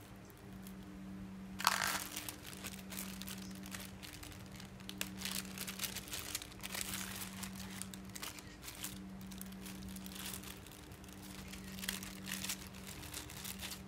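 Clear plastic packaging bags crinkling as they are handled and opened, in scattered bursts. The loudest burst comes about two seconds in.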